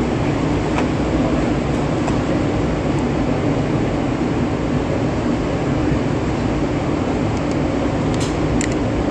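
A steady, even rumble of background noise with a few faint clicks; no shots.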